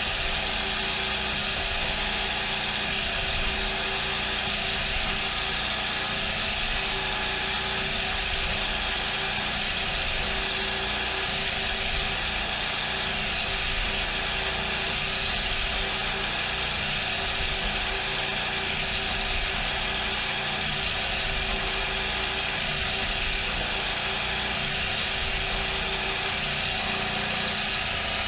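CNC mill's geared spindle running steadily as it drills with flood coolant, a constant mechanical whir with gear noise. There is no squeak as the bit comes back out of the hole and no sign of the gear case loading up, which the machinist puts down to the new coolant.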